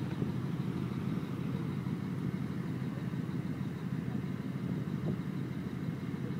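Wiesmann GT MF4-S's V8 engine idling with a steady low rumble from its exhausts.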